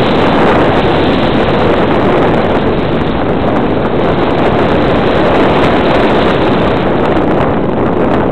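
Loud, steady rush of wind over the microphone of a camera carried in flight, with no clear engine tone.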